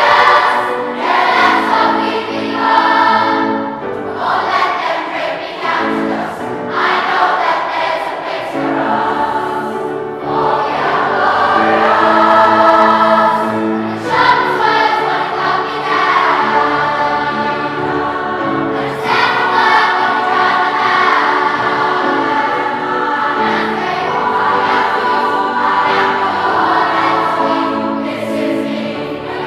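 A large choir of children and adults singing together in full voice, with piano accompaniment, in long sustained phrases.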